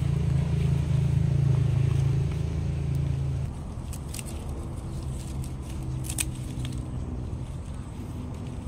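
A motor engine runs with a steady low hum, louder at first and dropping about three and a half seconds in. A few sharp snips of scissors cutting pandan leaves come through over it.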